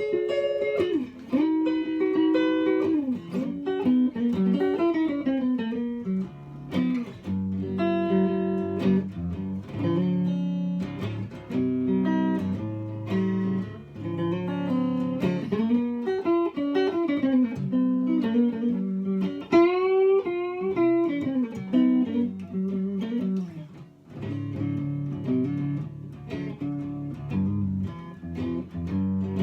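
Vintage Isana archtop guitar played in a free improvisation: single-note melodic lines with slides and bends, alternating with chords.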